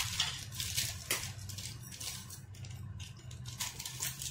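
Faint clicks and light rustling from hands handling things on a kitchen counter, a few separate ticks spread through, over a low steady hum.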